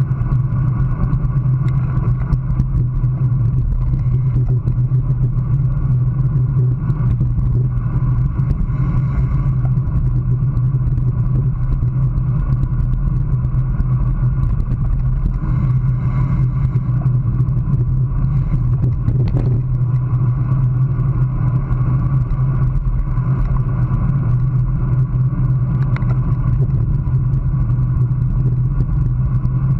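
Steady wind buffeting and road rumble on a handlebar-mounted GoPro as a road bike rides at about 20 mph.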